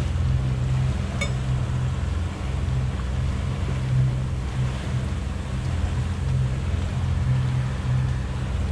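Yamaha outboard engine running at low speed, a steady low hum, with water washing along the moving boat's hull.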